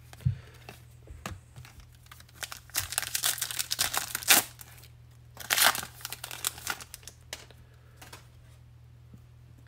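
Wrapper of a 2021 Bowman baseball card pack being torn open and crinkled by hand, in two spells of crackling: one about three seconds in and another just past halfway.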